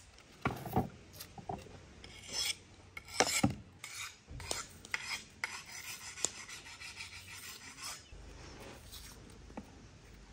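Kitchen knife being sharpened: a few separate rasping strokes of the blade, then a quicker run of them that stops about eight seconds in.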